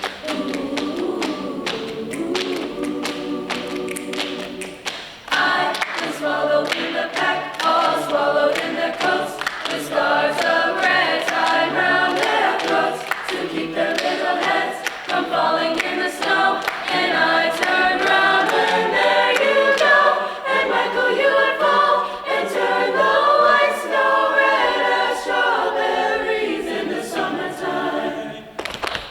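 Choir singing a cappella, in several voice parts. Lower voices hold chords at first, then higher parts come in about five seconds in and the singing grows fuller and louder.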